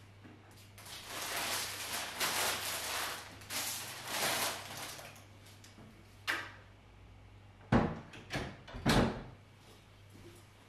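Crisp rustling of flower wrapping for a few seconds, then a wooden sideboard drawer being shut with several sharp knocks.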